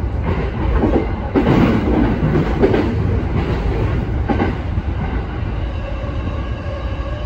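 Electric commuter train running at speed, heard from inside the driver's cab: a steady low rumble of wheels on rail, with a run of clacks over rail joints in the first half that gives way to a smoother run with a faint steady hum.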